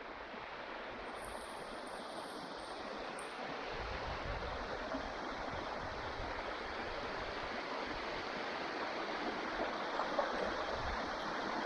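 Rushing water of a stream cascade, a steady hiss that grows slightly louder, with low rumbles about four seconds in and again near the end.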